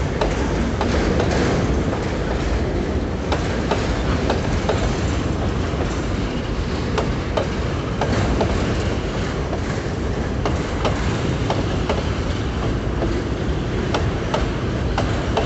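Empty freight boxcars rolling past close by: a steady rumble of steel wheels on rail, broken by irregular clicks and clanks as the wheels cross rail joints.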